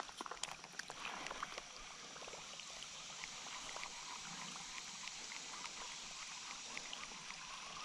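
Shallow creek water trickling faintly, with a few small ticks and light splashes in the first second or so.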